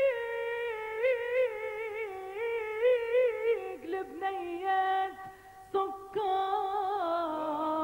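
A woman's solo voice sings a melismatic Tunisian mawwal with no accompaniment. She holds long notes with wavering turns on them and breaks off briefly a few times around the middle.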